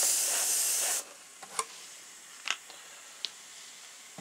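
Airbrush spraying paint: a loud hiss of air lasting about a second that cuts off sharply, followed by three faint light clicks.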